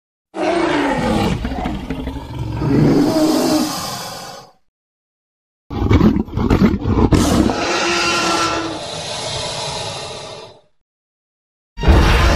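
Two long creature roar sound effects, each lasting about four to five seconds and separated by a second of silence. The second starts with a few sharp clicks. Another loud, deep sound starts just before the end.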